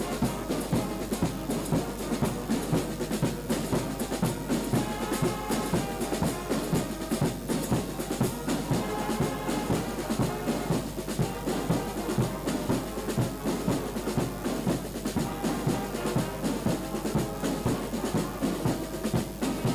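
Brass band music with drums, playing a steady dance beat.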